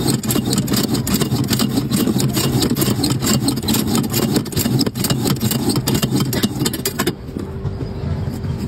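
Motor-driven pineapple peeling machine running, with a steady hum as it turns the fruit on its spindle, while the blade shaves off the skin with a fast, dense crackling rasp. About seven seconds in the shaving stops and only the machine's hum carries on.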